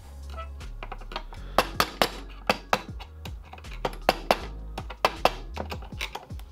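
A hammer taps a bearing driver to seat a 6203 ball bearing into the aluminium Puch ZA50 engine case. It makes a series of sharp metallic taps, irregular and a few a second, starting about a second and a half in, some much louder than others.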